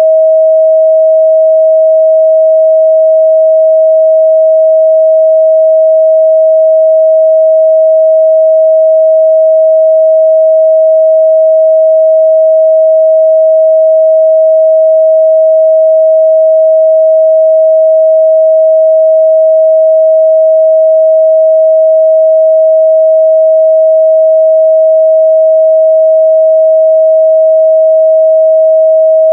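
A steady, loud 637 Hz sine-wave test tone held at one pitch and level without a break, used to check the response of speakers and headphones.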